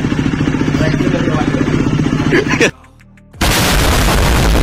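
KTM Duke 390's single-cylinder engine idling through a loud aftermarket slip-on exhaust with an even, tractor-like pulse; it cuts off abruptly about two and a half seconds in. After a brief gap, an edited-in explosion sound effect, loud and deep, fills the last second or so.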